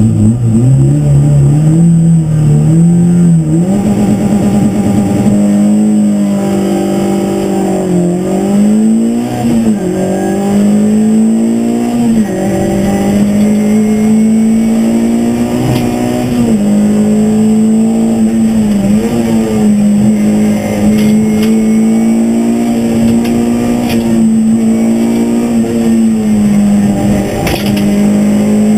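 Škoda Fabia rally car's engine heard from inside the cockpit at stage pace. It climbs in pitch as the car pulls away through the first few seconds, then holds high revs with brief dips and recoveries every few seconds as the driver lifts and changes gear.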